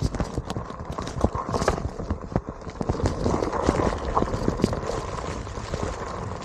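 Onewheel rolling over gravel, with small stones kicked up by the tyre clattering against the board in a quick, irregular string of clicks and knocks.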